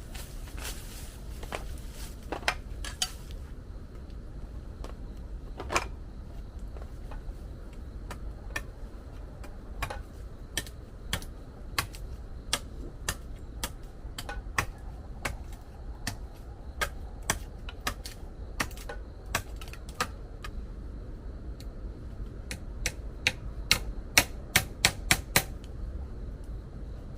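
Irregular sharp clicks and taps, roughly one or two a second, with a quicker run of louder ones near the end, over a low steady rumble.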